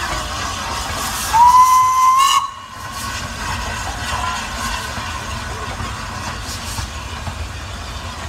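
LNER A3 steam locomotive Flying Scotsman (No. 60103) sounding one short whistle blast just over a second in, the note sliding up as it opens and lasting about a second. A steady hiss of steam continues as the locomotive moves past.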